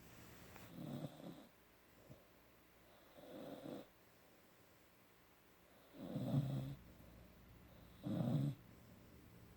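A 17-week-old Rottweiler–Mastiff cross puppy snoring in its sleep: four snores, each about half a second to a second long, two to three seconds apart.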